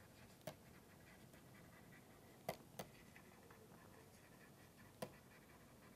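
Near silence broken by four faint clicks of a stylus tapping a tablet while writing by hand: one about half a second in, two close together about two and a half seconds in, and one about five seconds in.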